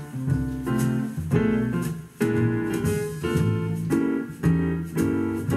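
Keyboard music played back by a stock Lada Granta car head unit, its built-in TDA7388 four-channel amplifier driving a pair of 8-ohm JBL Balboa 10 two-way bookshelf speakers at volume 15.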